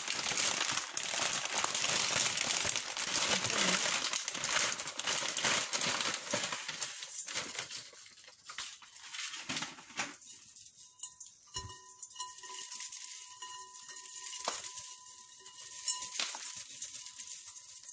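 Plastic packaging of rice sticks (bihon) crinkling as it is handled and opened, for about ten seconds. After that it goes quieter: a few light knocks over a faint steady hum.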